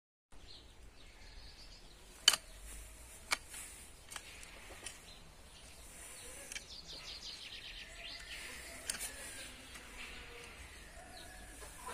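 Mattock blade digging into a compost heap, with a few sharp knocks, the loudest a little after two seconds in. Birds chirp in the background, with a quick run of chirps about halfway through.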